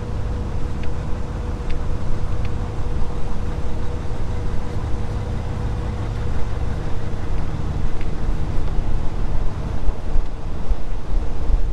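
Steady low rumble of an idling engine with a constant hum above it, and a few faint light clicks, the loudest early on.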